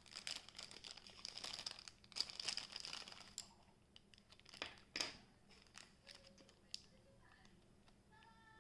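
Faint crinkling and rustling of hands and small tools being handled for about three seconds, then a couple of sharp clicks near the middle and a few quieter ticks.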